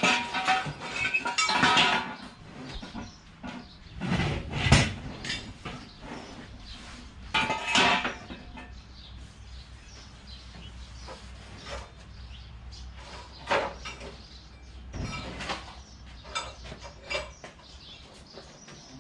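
Clattering of metal objects being handled: a series of clanks, clinks and knocks, busiest in the first two seconds and again around the fifth and eighth seconds, then sparser.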